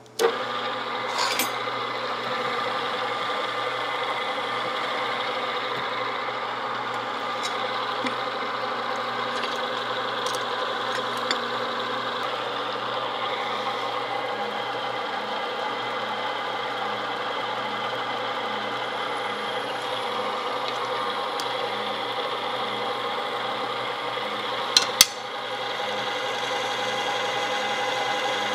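DoALL floor drill press starting up, then running steadily with an even motor-and-belt hum while its twist bit cuts into a steel plate. Two sharp clicks near the end.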